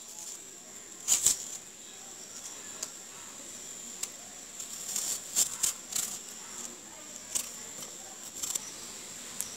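Kitchen knife cutting into and peeling a whole apple held in the hand: faint scattered scrapes and clicks, a few sharper ones about a second in and around the middle.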